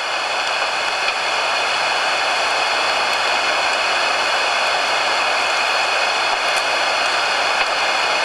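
Steady, even hiss of static-like noise, with two faint ticks late on.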